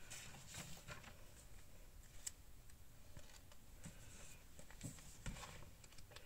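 Faint paper handling: soft rustles and light taps of fingers pressing a paper piece onto a journal page, then a rustle of paper pages being turned about five seconds in.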